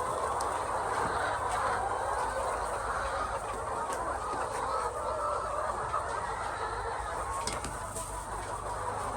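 A large flock of egg-laying hens clucking continuously as a dense, overlapping chatter, over a steady low hum.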